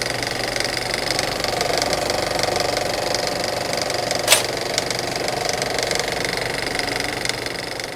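A small motor running steadily, with a single sharp click about four seconds in.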